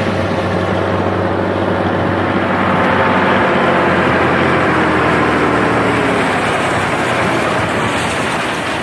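A 480 tractor's diesel engine running steadily under load, driving a tractor-mounted reaper binder that is cutting wheat.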